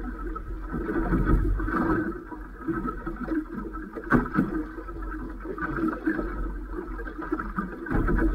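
Boat rocking on choppy open water: water washing around the hull and wind noise, over a steady low rumble, swelling and easing unevenly.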